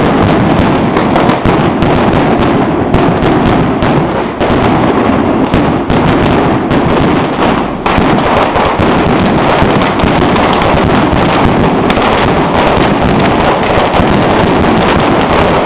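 Fireworks display going off in a dense, unbroken barrage of overlapping cracks and bangs, with aerial bursts and rising stars.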